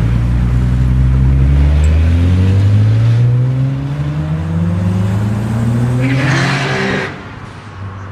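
Toyota Supra Mk4's straight-six engine pulling hard under acceleration, its pitch climbing steadily for about seven seconds. A short burst of hiss comes near the end, as the engine sound falls away sharply.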